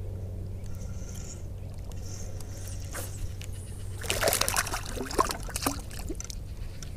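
A small hooked bass splashing and thrashing at the water's surface beside the boat as it is reeled in: a quick flurry of splashes begins about four seconds in and lasts about two seconds, over a steady low hum.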